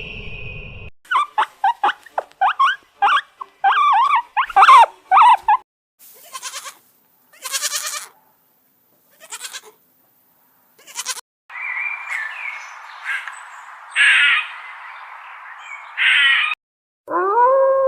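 A run of different animal calls, one clip after another: quick chirping calls, then pulsing bleats, then further calls over a hissy background, with a long howl starting near the end.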